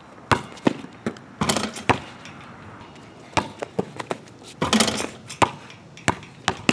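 Basketball bouncing on an asphalt driveway: a string of sharp thuds, with two longer clattering bursts, around a second and a half in and again near five seconds, from the ball and rim being hit during dunk attempts.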